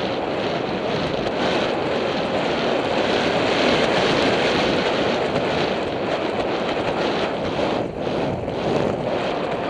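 Steady wind rush buffeting a helmet-mounted camera's microphone while riding a horse at speed.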